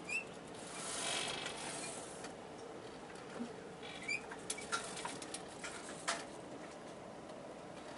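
Scattered faint creaks, clicks and squeaks, with a brief swell of hiss about a second in.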